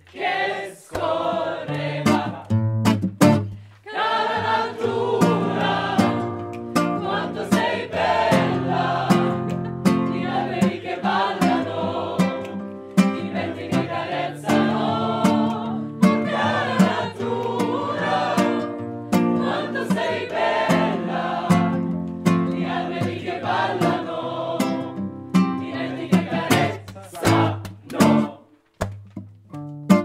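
A mixed group of men's and women's voices singing a song together, accompanied by a plucked acoustic guitar. Near the end the voices drop out, leaving the guitar.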